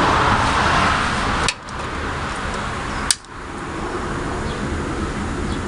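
Wilesco D20 model steam engine running with a steady noisy whir. It is broken twice by a sharp click with a brief drop in level, about a second and a half in and again about three seconds in.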